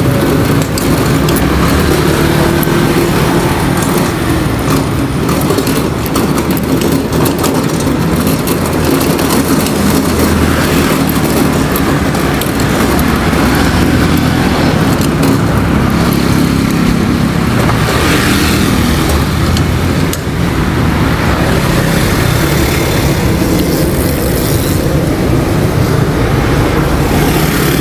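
Motor scooter riding through city street traffic: a steady engine hum with road noise, and other scooters and cars running close by.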